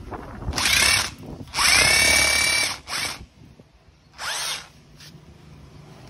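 Makita DHR202 18V cordless rotary hammer running in drill-only mode, without hammering, its bit boring into a concrete block. The motor spins up and winds down in four short trigger pulls, the longest about a second.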